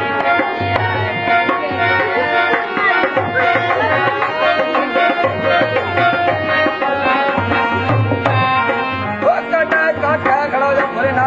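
Rajasthani kathputli puppet-show folk music: a hand drum keeps a steady beat under a quick, wavering melody line.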